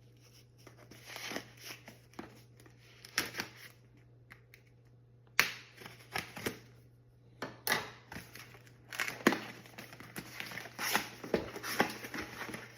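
Packaging being torn open and handled: irregular rustling and crinkling with several sharp rips, from unboxing a small boxed carbon monoxide alarm.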